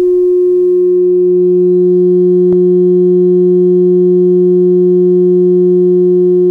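Small loudspeaker driver in a 3D-printed scale-model subwoofer enclosure playing a steady 360 Hz sine test tone (60 Hz scaled), measured at about 131.8 dB at the sensor. A lower steady tone at half that pitch comes in under it about half a second in, and a single click sounds about two and a half seconds in.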